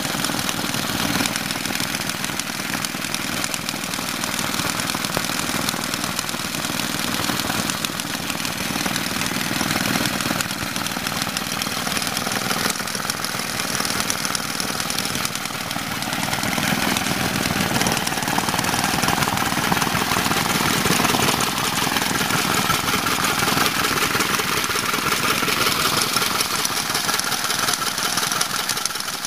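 1946 Maytag 72D twin-cylinder two-stroke stationary engine running steadily. About two-thirds of the way through, a higher steady tone joins in.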